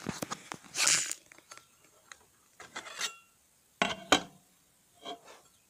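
Scrapes, clicks and knocks from cutting a loaf of hardened hot-process soap with a crinkle cutter in a cutting box: a scrape about a second in, then several clicks and knocks, the loudest a sharp knock about four seconds in, and a short scrape near the end.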